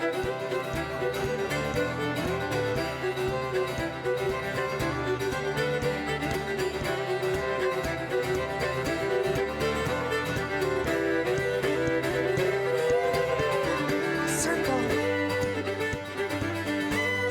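Live old-time string band playing a traditional contra dance tune at a steady dance tempo: fiddle lead over strummed guitar.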